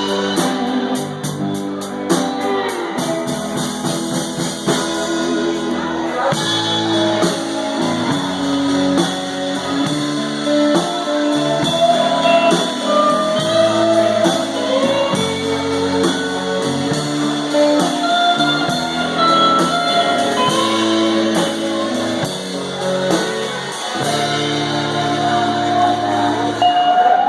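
Instrumental band music led by electric slide guitar, with notes gliding between pitches over a drum kit and bass.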